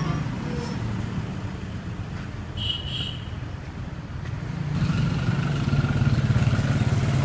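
Street traffic: a motor vehicle's engine running steadily, growing louder about two-thirds of the way through, with a brief high chirp near the middle.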